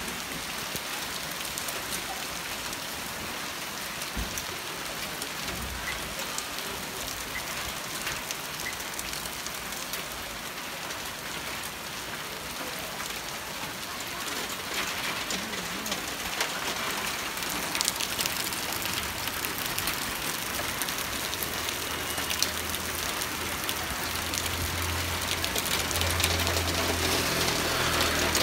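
Hailstorm: hail and rain falling steadily on the street and roofs, with scattered sharp ticks of hailstones striking hard surfaces. It grows a little louder toward the end. A low engine hum joins in the last few seconds.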